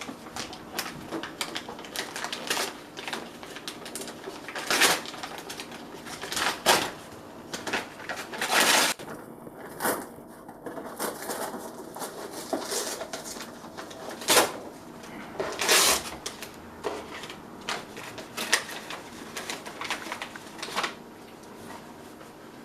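Gift wrapping paper being torn and crumpled as a present is unwrapped, in irregular rustling, crackling bursts with a few louder rips.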